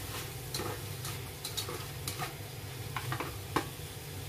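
A ladle and spatula knocking and scraping against a wok in irregular clicks as squid, bell pepper and onion are stir-fried, over a steady sizzle from the pan.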